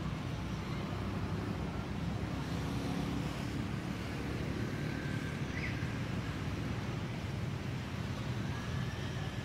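Steady low rumble and hiss of outdoor background noise, with a faint short high chirp a little past halfway.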